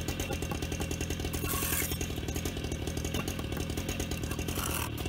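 A small engine running steadily at idle, with a fast, even pulse. Two brief scraping sounds come in, about a second and a half in and again near the end.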